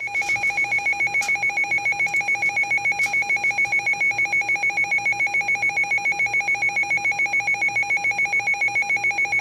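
Emergency Alert System attention tone: a loud two-pitch electronic alarm pulsing rapidly, about eight beats a second, signalling an incoming severe thunderstorm warning.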